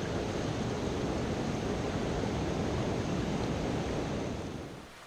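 Trout stream rushing over rocks close by: a steady wash of running water that fades down near the end.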